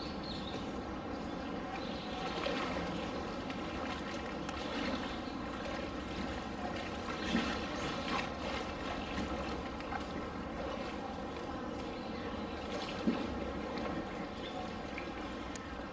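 Water running steadily, with a low, even hum underneath and a couple of brief louder knocks or splashes, one about halfway through and one near the end.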